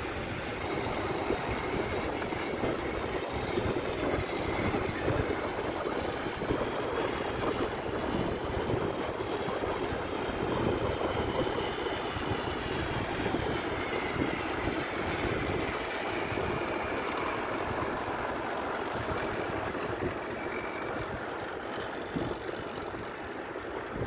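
Wind rushing and buffeting on the microphone of a moving bicycle, mixed with tyre noise on asphalt, steady throughout.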